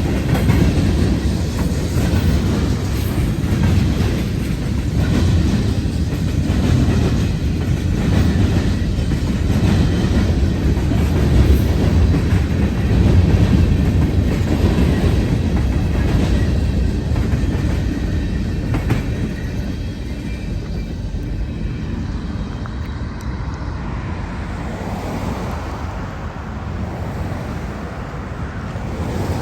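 Freight train cars rolling past with a steady rumble and clicking of wheels over the rail joints, growing quieter over the last third.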